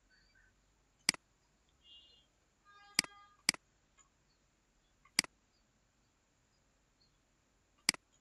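Computer mouse clicks, five sharp single clicks spread unevenly, two of them about half a second apart near the middle, over quiet room tone.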